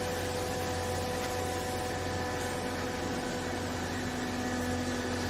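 Hydraulic baler machine running with a steady mechanical hum, with a few constant tones over an even noise. A lower tone joins about three seconds in.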